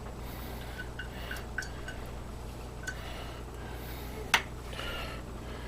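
Light clinks and taps of a utensil on a measuring cup and bowl as mayonnaise is scraped out, with one sharper knock about four seconds in, over a steady low hum.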